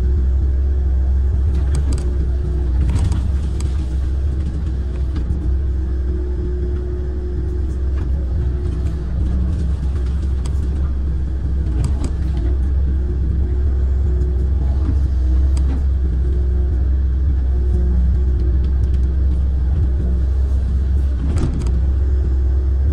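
Kobelco amphibious excavator's diesel engine running steadily as a deep, even drone while the arm digs through reeds, with a few faint clicks scattered through it.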